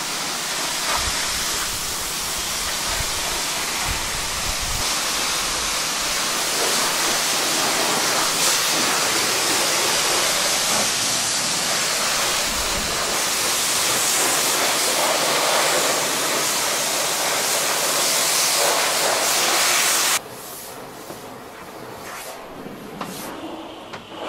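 High-pressure car-wash lance spraying water onto a camper van's body with a loud, steady hiss. The hiss drops suddenly to a much quieter level about twenty seconds in.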